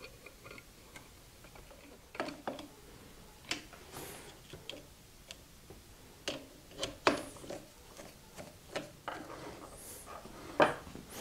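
Screwdrivers and the end housing of an electric motor being handled during reassembly: scattered light clicks and taps of metal tools on metal, a few ringing briefly.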